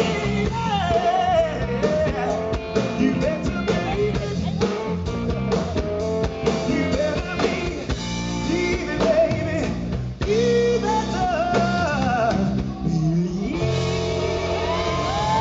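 Live rock band playing: a male lead singer's vocals over electric guitar, bass guitar and drum kit.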